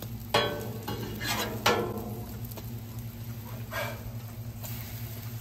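Metal spatula scraping across a Blackstone flat-top griddle, slid under slices of French toast and flipping them: a few short scrapes over a low steady hum.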